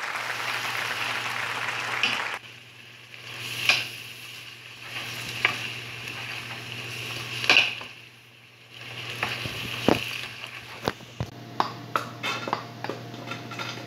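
Mung bean sprouts and carrot sizzling in a nonstick pan as a wooden spatula stirs and scrapes them, sautéed to half-cooked; the sizzle drops away about two and a half seconds in, leaving occasional scrapes. Near the end a run of sharp clinks and knocks as the pan is tipped and the vegetables are poured into a metal strainer.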